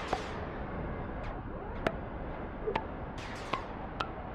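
Experimental electronic sound-design music made with Uhhyou software synth plugins: a steady hissing noise bed with about six sharp, irregularly spaced clicks, several of them ringing briefly as short pitched pings.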